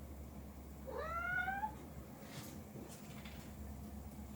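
Domestic cat meowing once about a second in: a single short meow that rises in pitch.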